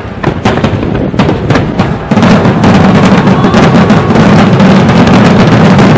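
Aerial fireworks display: a run of separate sharp bangs and pops, then about two seconds in a dense, continuous crackling barrage that is louder still.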